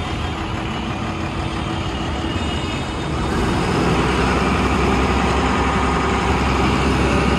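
Bus engine idling with a steady low hum that grows louder about three and a half seconds in.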